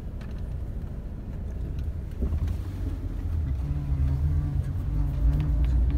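Car engine and road noise heard from inside the cabin, a low rumble that slowly grows louder. A steady engine hum comes in about halfway through.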